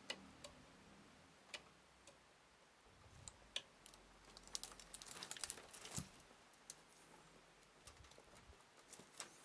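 Faint scattered clicks and plastic handling noise of a SATA power cable being pushed onto a hard drive's connector, busiest in the middle, with the sharpest click about six seconds in.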